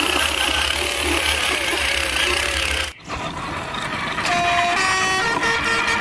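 A steady truck-engine hum with a hiss, cutting off abruptly about halfway through. About a second later a simple tune of clean, held notes starts up.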